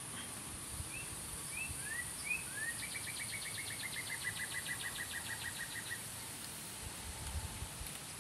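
A songbird sings a few short rising notes, then a rapid, even trill that lasts about three seconds and stops, over a steady high chorus of insects.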